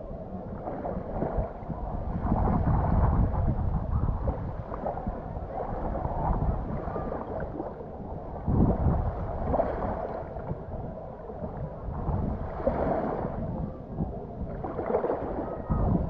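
Wind buffeting the microphone in uneven gusts, over the wash of the sea.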